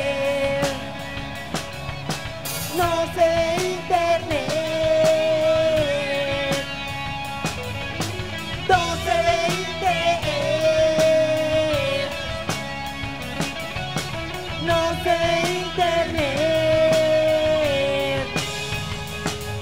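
A rock band playing live: drum kit, electric guitars and bass under a melodic lead line that comes around three times in phrases of a few seconds each.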